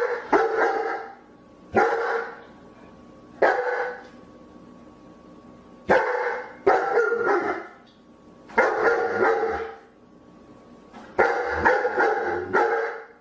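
A dog barking about ten times, single barks and quick pairs spaced a second or two apart.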